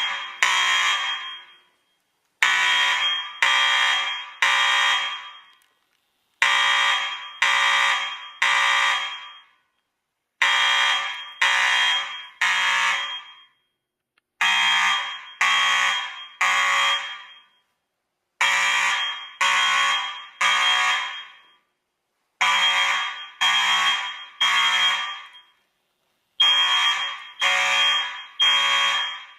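Fire alarm horn sounding the temporal-three evacuation pattern: three short buzzing blasts, a pause, then three more, repeating about every four seconds. It was set off from a manual pull station.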